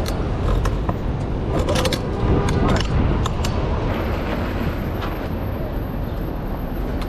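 City street traffic noise: a steady rumble with scattered sharp clicks and rattles close by, and a faint high whine starting about four seconds in.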